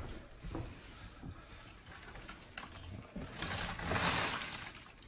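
Cloth towel rubbing over a wet countertop to wipe up spilled water, a swishing rub about three seconds in that is the loudest sound. A few light knocks come before it.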